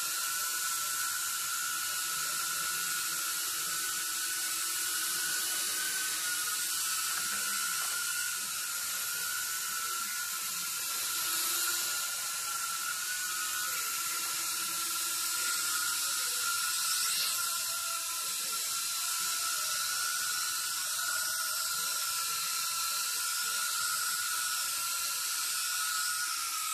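1S 75mm tiny whoop quadcopter's motors and ducted propellers whining steadily at a high pitch while it flies, the pitch wavering slightly with throttle.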